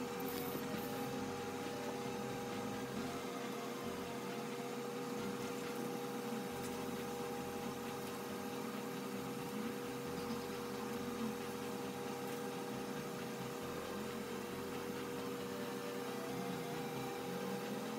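Steady hum with a faint hiss: room tone.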